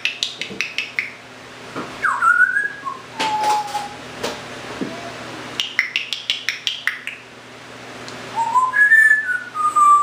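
Timneh African grey parrot whistling and clicking: quick runs of sharp clicks in the first second and again about six seconds in, with short whistled notes between, some sliding up and the last ones near the end falling in steps.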